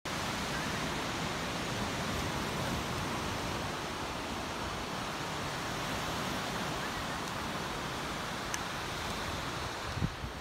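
Steady, even rush of ocean surf on a beach, with a soft low bump near the end.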